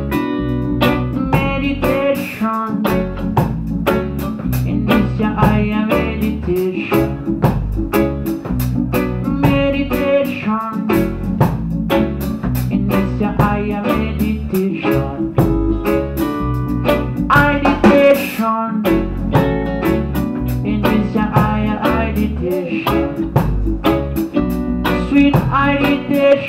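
Live band playing an instrumental passage: electric guitar over drum kit, bass and keyboard, with a steady beat.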